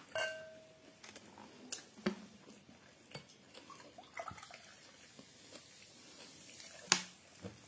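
Water poured from a plastic bottle into a drinking glass, among scattered clicks and taps of tableware. A short ringing clink comes just at the start, and a sharp knock, the loudest sound, comes near the end.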